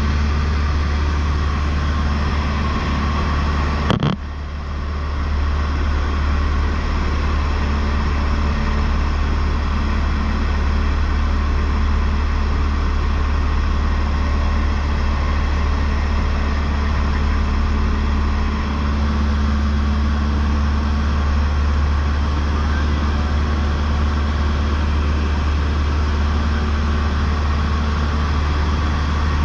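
Cessna 152's four-cylinder Lycoming engine and propeller in cruise flight, a loud, steady drone with a strong low hum. A single sharp click comes about four seconds in, and the sound dips briefly before recovering.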